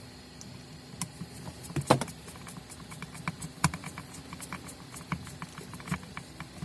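Light, irregular clicks and taps of plastic sander housing parts and screws being handled during reassembly, with one sharper knock about two seconds in.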